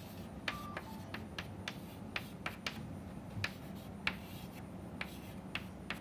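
Chalk writing on a chalkboard: a run of short, sharp taps and scratches at irregular spacing, a few a second.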